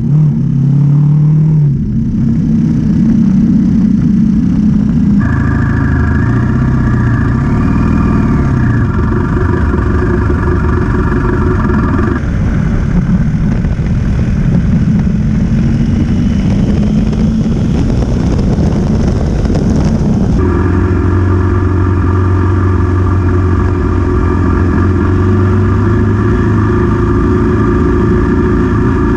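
BMW GS motorcycle engine running while riding a dirt track, with wind and tyre noise over it. The engine note changes abruptly a few times, with a noisier, rougher stretch in the middle.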